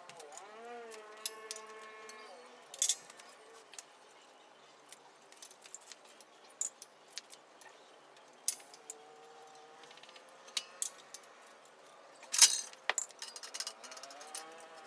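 Scattered metallic clinks and knocks from a steel bottle-jack handle and jack being handled on a homemade hydraulic press's steel frame, with one sharp metal clank about twelve seconds in.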